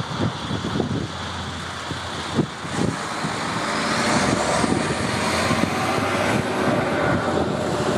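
Handley Page Victor K2's four Rolls-Royce Conway jet engines running as the bomber taxis and turns onto the runway, growing louder with a rising whine from about halfway through. Wind gusts buffet the microphone.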